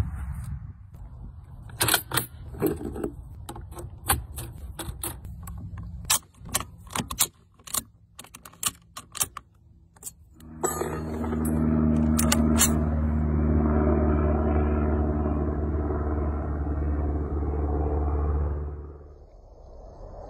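Metallic clicks and rattles of cartridges on stripper clips being handled and loaded into an SKS rifle. About ten seconds in a steady low hum starts and runs for about eight seconds before fading.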